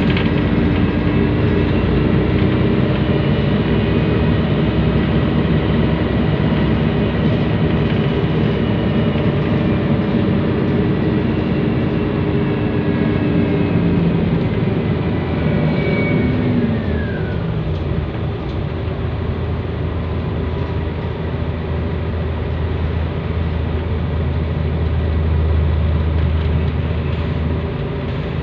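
Scania L113CRL bus's turbocharged 11-litre straight-six diesel heard from inside the cabin: the engine pulls with a high, rather loud turbo whine, then a little past halfway the whine and engine note fall away as it eases off, leaving a low engine drone.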